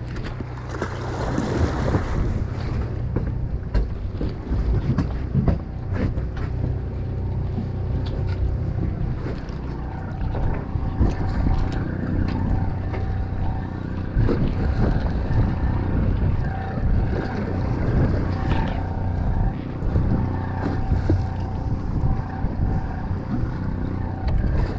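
Fishing boat's engine humming steadily, with wind buffeting the microphone and scattered knocks and clatter on deck.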